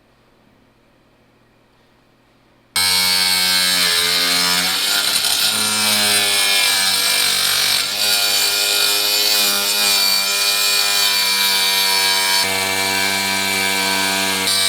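Power saw cutting a sheet of plexiglass. It starts suddenly about three seconds in and runs steadily and loudly, its motor pitch wavering slightly as it cuts.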